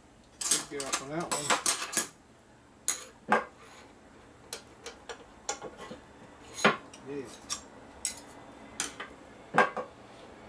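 Thin steel shim stock and an aluminium primary cover clinking and rattling on a steel workbench as pieces are handled and set down. There is a quick flurry of clicks in the first two seconds, then single sharp clinks every second or so, a few with a short ring.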